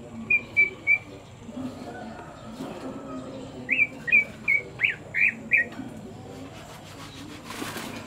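Caged cucak ijo (green leafbird) calling: three short, clear whistled notes, then after a pause a quicker run of six sharper notes, some sweeping down in pitch. A brief rustling noise follows near the end.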